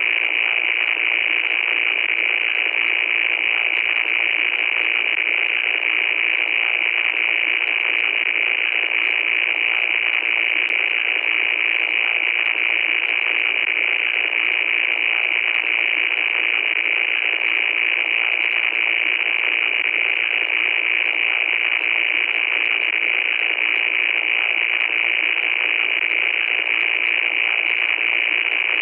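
Loud, steady static noise with a harsh, hissing top, laid over a thin crackle of tiny clicks, unchanging throughout.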